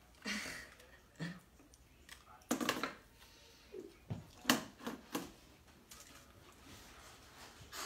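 A few short clatters and rustles of a small plastic basket being picked up in a German Shepherd puppy's mouth and handed over.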